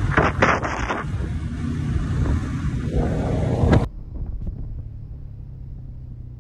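ATV engine running under way on a dirt trail: a loud, rough rumble. About four seconds in it drops abruptly to a quieter, steady hum.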